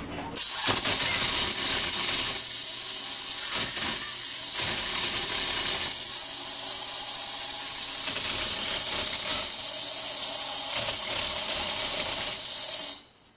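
HVAC indoor blower fan running loud, with a harsh high hiss, a steady high whine and irregular metallic rattling and knocking: the noise of a blower wheel separating. It starts abruptly about half a second in and cuts off abruptly just before the end.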